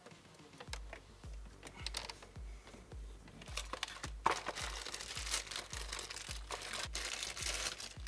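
Plastic packaging crinkling and rustling as an adapter kit is unpacked, getting busier and louder about halfway through. Under it runs background music with a steady bass beat.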